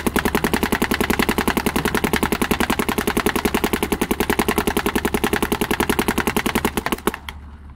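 Dye M2 electronic paintball marker firing in a rapid, evenly spaced stream of shots, which stops suddenly about seven seconds in.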